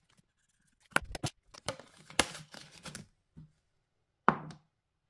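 Paper money and savings-challenge sheets being handled on a table: a run of sharp clicks and knocks with light rustling, the loudest about two seconds in, then a single sharp knock near the end.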